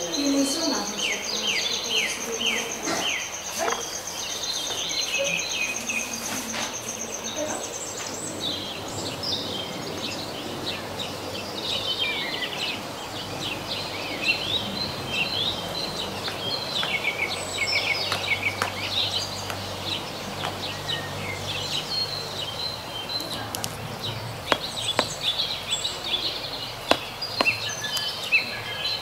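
Many small birds chirping and twittering. A steady high trill runs under the chirps for the first several seconds and then stops, and a few sharp clicks come near the end.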